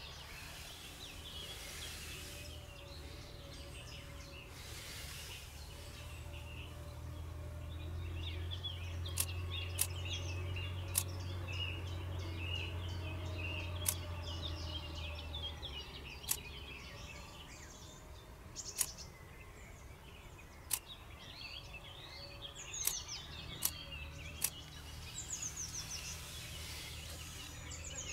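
Small birds chirping and trilling over a low steady rumble, with a few sharp ticks scattered through.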